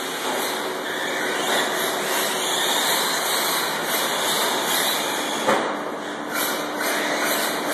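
Radio-controlled 4x4 short-course trucks racing around an indoor track: a steady wash of motor and tyre noise.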